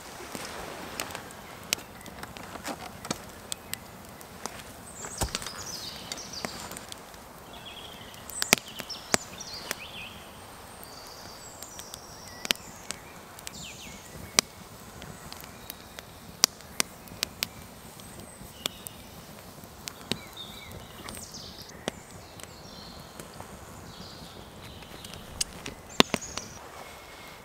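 Wood fire burning in a Dakota fire hole, crackling with sharp snaps and pops every second or so; the loudest snaps come about eight seconds in and near the end. High chirping calls sound in the background.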